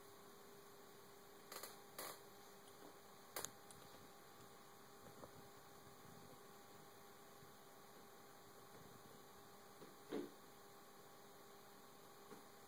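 Near silence with a steady faint hum. A few brief soft clicks come in the first few seconds, and a slightly louder short sound comes about ten seconds in.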